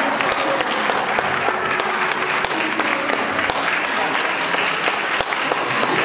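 Theatre audience applauding: many hands clapping steadily.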